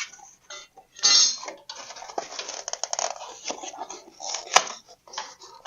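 Styrofoam packing being cut and scraped out from inside a table saw: irregular scratching and crunching with scattered small clicks of the tool against the saw's metal, and one sharp click about four and a half seconds in.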